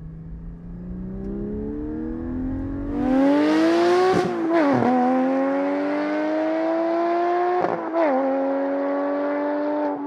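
Porsche 718 GT4's flat-six engine through a Soul Performance race exhaust, accelerating hard under full throttle with its pitch and loudness climbing. About four seconds in and again near eight seconds there is a quick upshift: the note breaks, drops in pitch, and climbs again.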